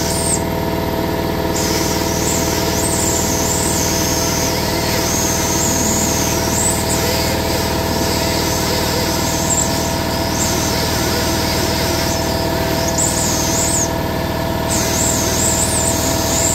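Ingersoll Rand 90-degree air die grinder working against metal. Its high-pitched whine wavers up and down in pitch as it is loaded and eased off, and drops out briefly about a second in and again near the end. Underneath, an Ingersoll Rand SS3 air compressor keeps running with a steady hum.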